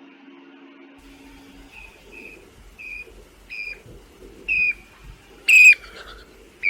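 A series of short, bird-like whistled notes, about one every half second to a second, growing louder. One much louder, shrill note comes near the end.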